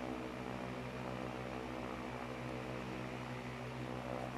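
Steady low electrical hum under an even hiss, with no other sounds rising above it.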